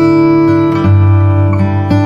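Background music: acoustic guitar playing chords, changing chord about once a second.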